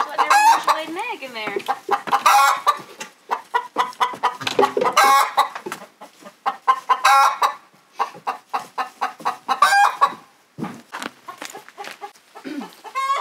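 A hen cackling her "egg song", a long run of loud, repeated calls that a hen gives after laying an egg.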